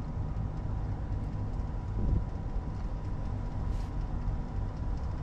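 Steady low rumble of outdoor background noise with a faint, thin steady whine, and a soft thump about two seconds in.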